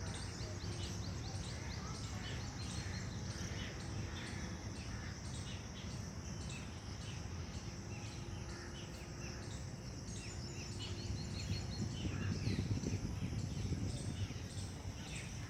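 Many birds chirping over a steady high insect drone and a constant low background rumble, which swells for a couple of seconds near the end.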